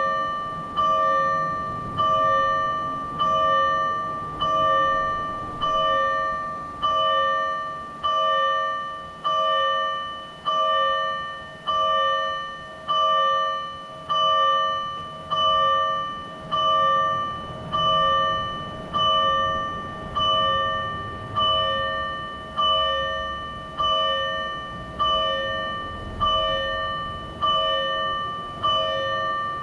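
Electronic fire-engine warning bell from a Patlite TWS-5102V siren amplifier, struck at a slow, even pace of about one stroke a second. Each stroke rings and fades before the next: the slow (low-speed) pattern of the Tokyo Fire Department's warning bell.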